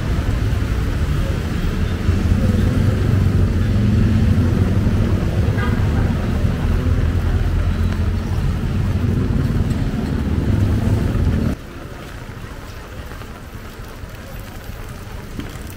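Rainy street noise dominated by a low, steady engine rumble from nearby traffic, with a hiss of rain above it. About eleven seconds in it drops suddenly to a quieter, even rain-and-street hiss.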